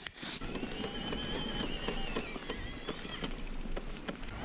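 Norco Range VLT e-mountain bike drivetrain under pedalling load. A high whine rises and falls for about three seconds, with irregular clicks from the chain and derailleur. The rider traces the trouble to snow and ice packing the rear sprocket, so the chain won't seat.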